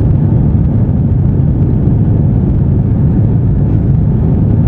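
Airbus airliner taking off: a loud, steady low rumble of jet engines and rushing air.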